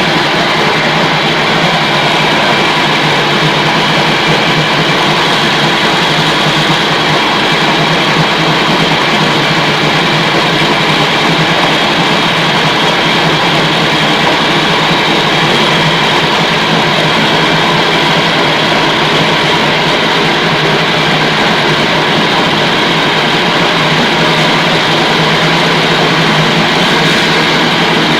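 Size-70 bakso meat-grinding machine running steadily: a loud, even machine drone with several held tones and no change in speed.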